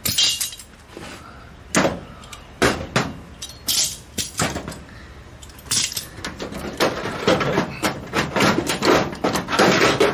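Locking vise-grip clamps being released and pulled off a steel body panel: a string of sharp metal clicks and clanks, with the tools clattering together, busiest in the last few seconds.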